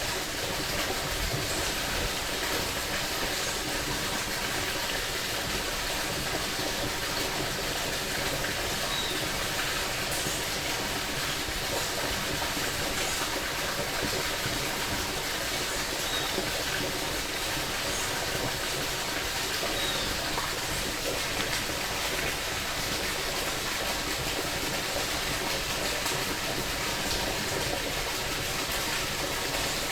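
Creek water rushing and splashing in a steady, even stream, with a few faint short chirps now and then.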